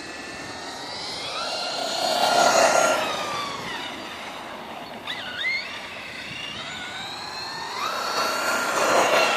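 Electric RC monster truck on a 4S LiPo, its motor and gears whining as it speeds along asphalt. The whine climbs in pitch as it accelerates and is loudest about two and a half seconds in and again near the end, with a quick rev up and down around five seconds in.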